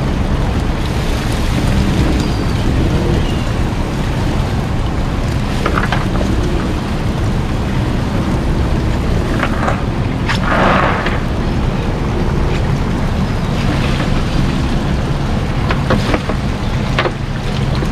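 Outboard motor running steadily in reverse under a constant spattering of water and live baitfish as a cast net full of bait is emptied into the live well, with a brief louder rush about halfway through.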